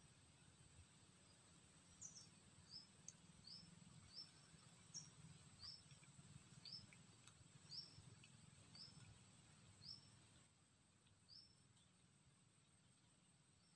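Faint forest ambience: a small bird repeating a short rising chirp about once a second, stopping near the end, over a steady high-pitched whine.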